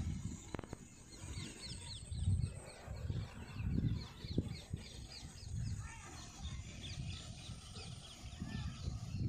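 Birds calling in a rapid series of short, high chirps, with a low, irregular rumble underneath.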